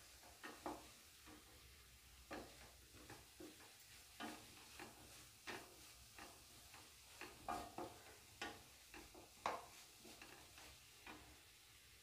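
Wooden spatula scraping and knocking against a metal kadai as diced potato and vegetables are stirred while sautéing. The strokes are faint, short and irregular, about once a second, over a faint sizzle.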